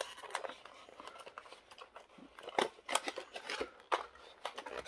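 Cardboard toy box being handled and turned over: scattered light clicks, short scrapes and rustles of cardboard and its insert.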